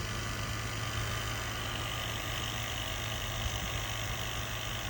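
Craftsman 350 psi cordless pressure washer's electric pump running steadily with a low hum while it primes, drawing water up before any reaches the nozzle.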